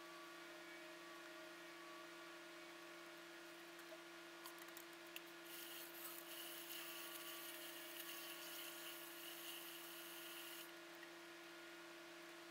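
Hand drill running in a bucket of glaze, stirring it: a faint steady whir that starts about five seconds in and stops suddenly about five seconds later, after a few small clicks. A steady low hum sits under it.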